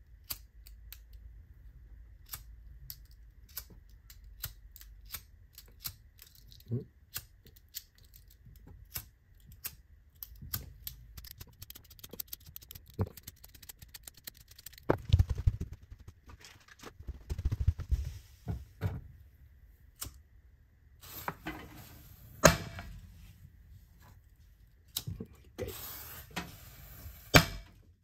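Sped-up handling sounds: a rapid run of small clicks and clatter from hands working a lighter and firecrackers on a cardboard board, with a few louder knocks in the second half.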